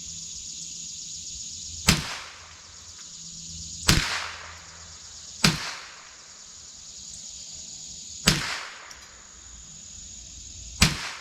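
Marlin Model 60 .22 rimfire semi-automatic rifle fired five single shots, spaced unevenly about one and a half to three seconds apart. It is shooting a test group to check the zero of a newly mounted scope.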